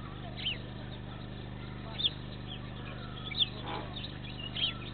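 A small bird giving a short, high, falling chirp over and over, about once every second and a half, over a steady low hum.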